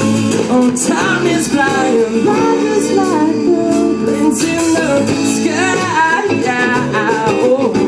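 Song music with a steady full sound: melodic lines that glide and bend over sustained chords, with guitar, and likely wordless vocals.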